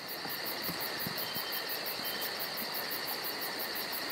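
Night-time chorus of crickets and other insects: a steady high trilling with a fast, evenly repeating chirp above it.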